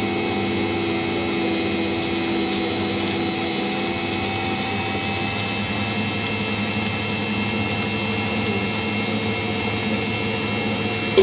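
Electric stand mixer with a wire whisk running steadily at low speed, its motor humming evenly as it beats a rice-flour and tapioca batter. A short click right at the end.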